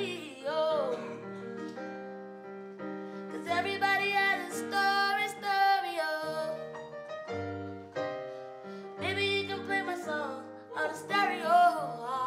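A woman singing solo with wavering vibrato on long held notes, over sustained keyboard chords played along with her. The voice drops out briefly in the middle while the chords ring on, then comes back in.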